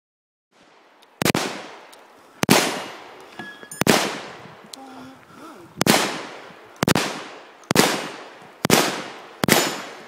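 Eight gunshots from a long gun, fired roughly a second apart, each with a ringing echo dying away after it.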